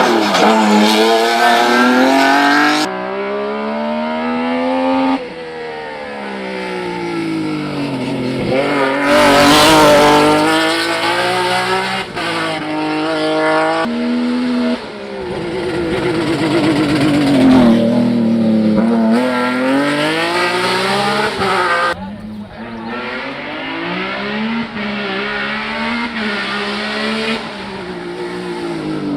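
Hill-climb race car engines at full throttle, pitch climbing and dropping as they shift through the gears, in several short shots cut abruptly together. About nine seconds in, a louder, rougher stretch comes, as from a car close by.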